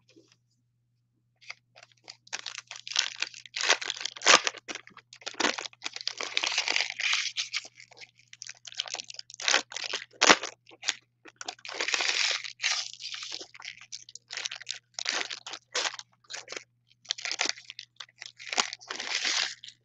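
Foil trading-card packs and their plastic wrapping crinkling and tearing in irregular bursts as they are handled and ripped open, starting about a second and a half in.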